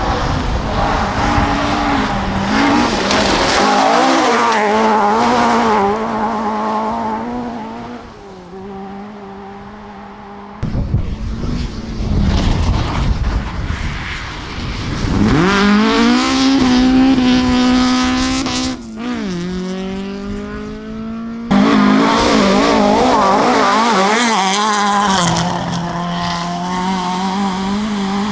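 Ford Escort rally cars driven hard on a gravel stage, their engines revving up and down through the gears. One engine climbs steadily for a few seconds, then drops sharply at a gear change. Several separate passes follow one another, the sound changing abruptly between them.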